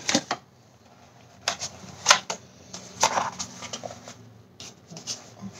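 Handling noise from a plastic mask being lifted out and held against the face: a few scattered rustles and light clicks, about half a dozen, separated by quiet stretches.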